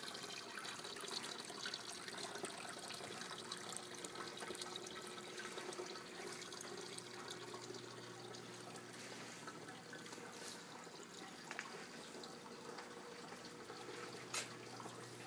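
Water splashing and trickling steadily from a pipe outlet into a koi pond's plant filter. A faint low hum comes in about halfway, and there is a single click near the end.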